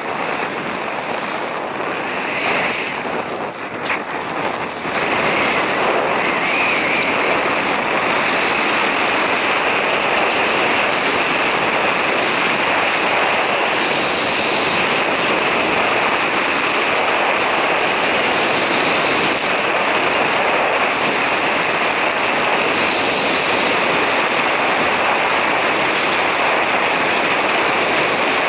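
Wind rushing over the camera's microphone and skis running on packed snow as a skier speeds down a groomed piste. The first few seconds are uneven, with some scraping; from about five seconds in it settles into a steady, loud rush as speed builds.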